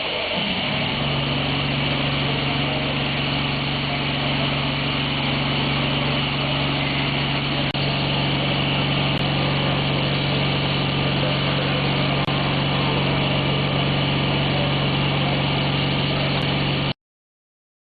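Isomec railway air compressor running steadily on a test bench: an even machine hum with a strong low drone. It cuts off suddenly near the end.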